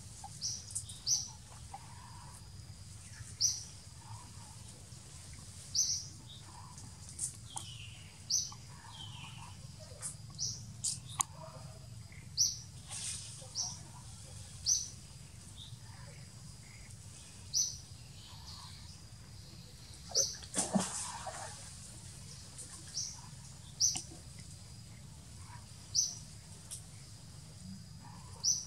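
Forest ambience: a bird repeating a short high chirp every two seconds or so, over a steady low hum and a faint steady high tone, with one brief louder noise about twenty seconds in.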